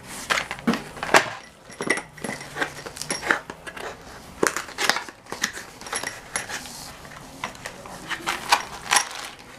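Parts packaging being handled: crinkling and rustling of bags and box, with many irregular small clicks and knocks.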